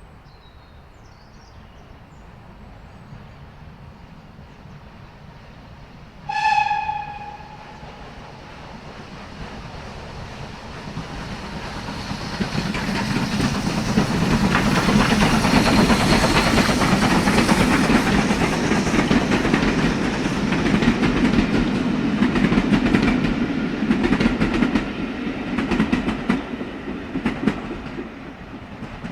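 A train approaching with a low rumble that slowly grows, giving one short horn blast about six seconds in, then passing close with loud rumbling and wheel clatter on the rails before easing off near the end.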